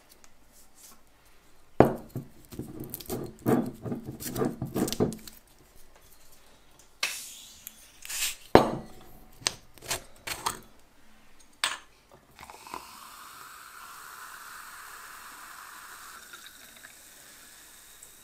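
A bottle of sparkling wine (Sekt) being opened: its foil and wire cage crackle and click, there is a short hiss, and then one sharp pop a little past halfway. The wine is then poured into glass flutes, a steady fizzing pour lasting about five seconds.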